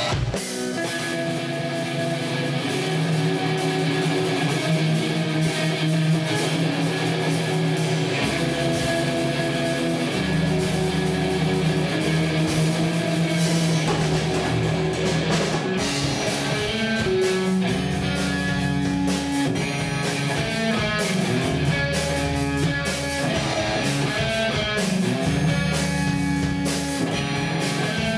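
Live rock band playing: electric guitars and drum kit, with deep bass notes coming in about eight seconds in.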